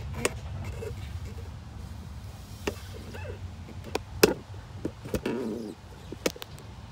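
Camera handling and movement noise: scattered sharp clicks and knocks, loudest a little past four seconds in, with a short scrape around five seconds, over a low rumble.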